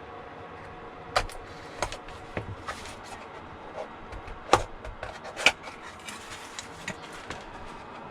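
Small hard parts being handled and set down: a scatter of sharp clicks and knocks, the loudest twice about a second apart in the second half, over a faint steady hum.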